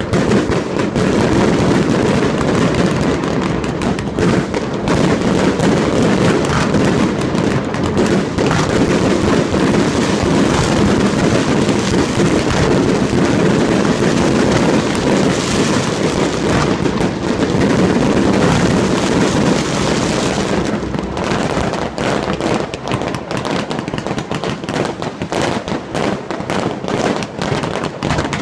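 Fireworks display: a rapid, continuous barrage of bangs and crackling. About two-thirds of the way through it thins out into more separate bangs.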